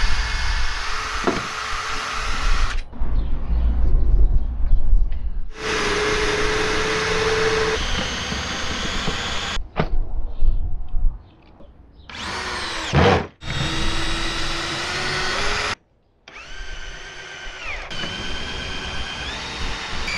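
Power tools working wooden battens in several separate runs, cut off abruptly between them; in some runs the motor's whine rises and falls in pitch as a cordless drill speeds up and slows down.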